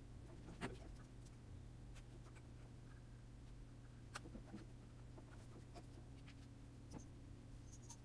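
Faint, scattered clicks and taps from a 2.5-inch SSD being handled and pressed into the drive bay of an opened MacBook Pro, over a low steady hum.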